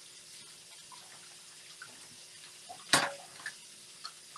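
Kitchen tap running into a stainless steel sink while dishes are washed by hand, with a single sharp clank about three seconds in and a few small clicks after it.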